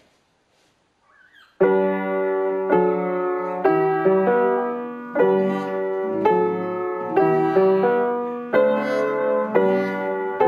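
Background piano music that starts about a second and a half in, with chords struck roughly once a second and each one dying away.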